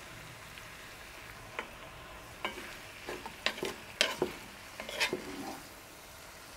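Beef chunks and onions sizzling as they sear in a cast-iron Dutch oven. A wooden spoon stirs them, scraping and knocking against the pot a dozen or so times over a few seconds.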